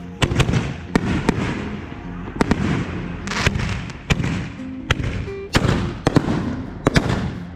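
Consumer fireworks going off in quick succession: about a dozen sharp bangs at uneven intervals, mixed with crackling.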